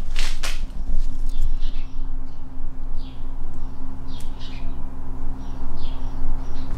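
Small birds chirping in short, repeated calls over a steady low hum.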